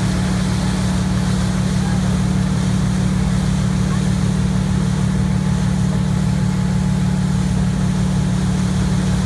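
Inboard engine of a Correct Craft ski boat running steadily at towing speed, a low drone with a fast even pulsing beneath it, over the hiss of the wake and spray.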